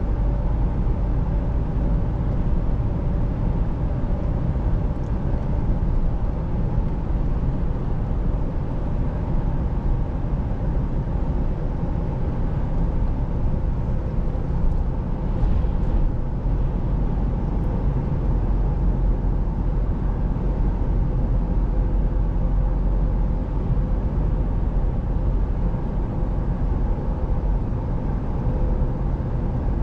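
2023 Chevrolet Colorado ZR2 cruising at highway speed, heard from inside the cab: a steady low drone of tyre and road noise with engine hum.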